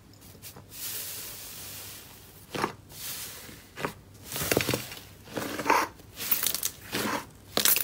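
Thick green slime being pressed and squeezed by hand, giving a string of short, irregular squishing sounds that come more often in the second half.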